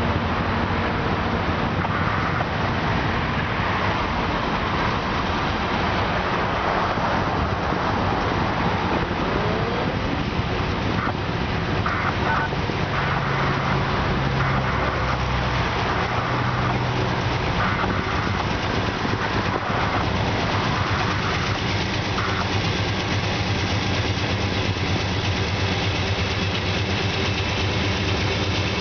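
Union Pacific diesel locomotives leading a loaded coal train toward the listener: a steady low engine drone over a constant rumbling noise.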